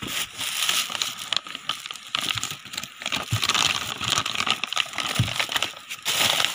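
Clear plastic packaging bag crinkling and rustling as it is handled and pulled open, with many small crackles and clicks.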